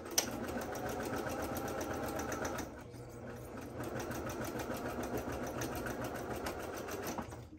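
Electric domestic sewing machine stitching a straight seam through interfaced cotton fabric, running at a steady rapid stitch rate. It eases off briefly about three seconds in, runs again, and stops just before the end.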